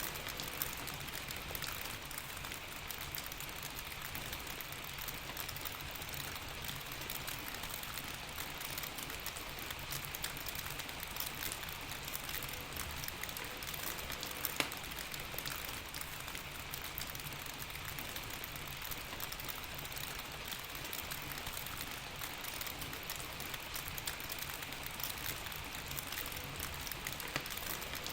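Steady rain: an even hiss with many small drop ticks scattered through it and one sharper click about halfway through.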